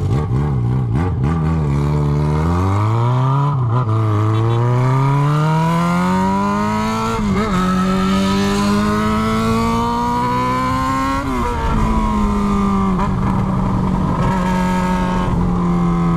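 Yamaha XJ6's inline-four engine running through the bare exhaust pipe with the end can removed, loud and raw, as the motorcycle pulls away and accelerates. The pitch climbs through the gears, dipping briefly at three gear changes, then holds steadier near the end.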